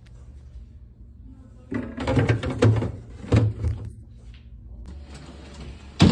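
Knocks and rattles of a refrigerator's freezer door and plastic ice bin being handled for about two seconds, then a single sharp bang near the end as a door is opened or shut.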